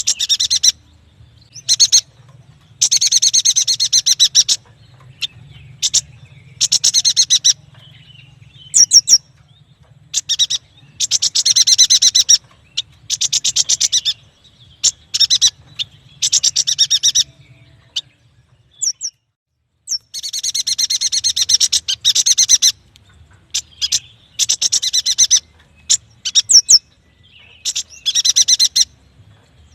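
Yuhina singing: rapid trills of high chirps in bursts of one to two seconds, separated by short pauses and single sharp notes.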